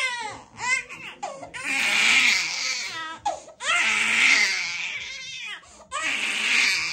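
A baby girl crying hard in long, loud wails, about three of them with gasps for breath between, the distress of having just had her ears pierced.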